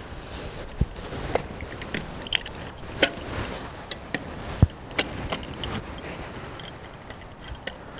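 Ratchet wire strainer being cranked with a steel handle to tension fence wire: irregular metallic clicks and clinks from the ratchet and handle, the loudest about four and a half seconds in.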